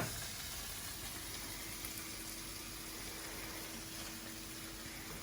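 Cod pieces cooking in a pan of butter and spice paste on low heat, sizzling gently and steadily, with a faint steady hum underneath. A single sharp knock comes right at the start.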